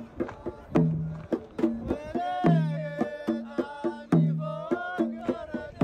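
Background music: a steady drum rhythm of deep, pitched strokes and sharp hits, with a sliding melody coming in over it about two seconds in.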